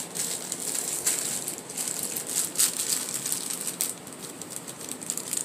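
Thin clear plastic bag rustling and crinkling as a small potted orchid is handled and unwrapped from it, with a few sharper crackles.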